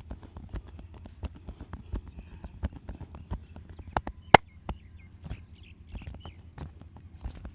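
Massage hand strikes: quick, uneven slaps and taps of hands on the head and back, several a second, with one much louder, sharp crack about four seconds in.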